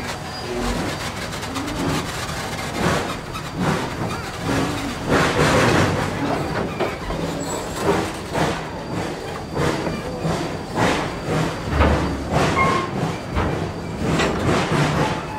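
Rio Grande Southern #20's narrow-gauge steam train on the move: a steady run of uneven clanks and clacks from the locomotive, wheels and cars.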